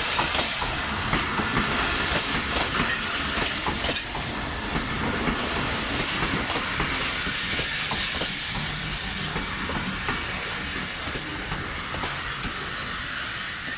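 Passenger train's coaches rolling on the track, wheels clicking and clacking over rail joints over a steady rushing noise, slowly getting quieter.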